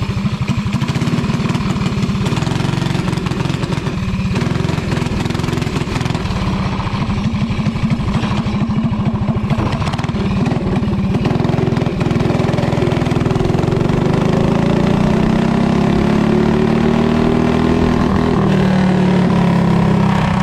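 Briggs & Stratton go-kart engine running as the kart is driven, its pitch shifting with the throttle. It gets louder about twelve seconds in and holds at higher revs, its pitch wavering.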